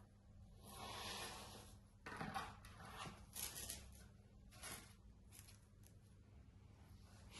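Faint unboxing handling noises: a soft rustle of packaging about a second in, then a few scattered light taps and clicks.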